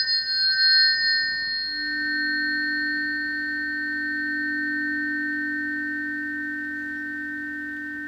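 Tuning forks ringing after a strike: several pure, steady tones held together, with a lower hum swelling in about a second and a half in beneath the higher ones, all slowly fading.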